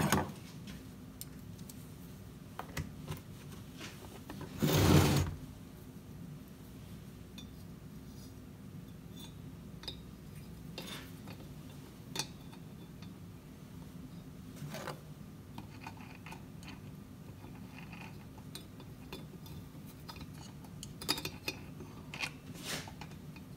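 Small metallic clicks and clinks of screws and a hex key being handled and driven into a chainsaw, with one louder clatter about five seconds in and a quick run of clicks near the end, over a low steady hum.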